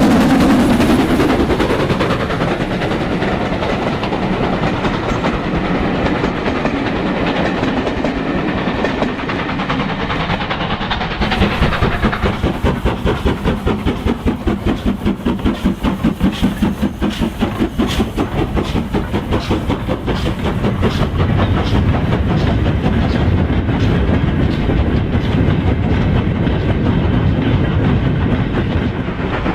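Model railway train running on the track, a steady mechanical rolling noise. About twelve seconds in a regular pulsing beat sets in, roughly two a second.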